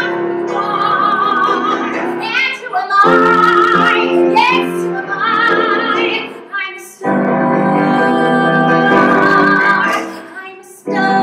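A woman singing in full voice with piano accompaniment, holding long notes with vibrato. The singing breaks off briefly twice, a little past the middle and near the end.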